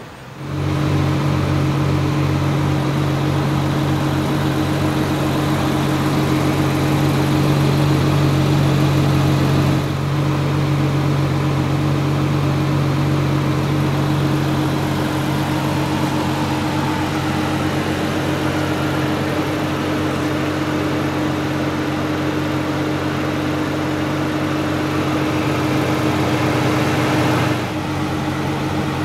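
A parked car's steady mechanical hum that fades in over the first second, runs evenly, then drops a little in level near the end.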